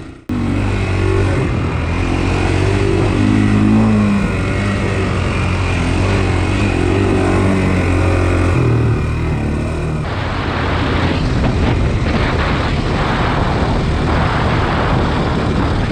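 Single-cylinder Honda 400X ATV engine running under way on a trail, its note holding steady and then shifting with the throttle about eight seconds in. Over the last few seconds a rougher rushing noise with irregular pulses rises over it.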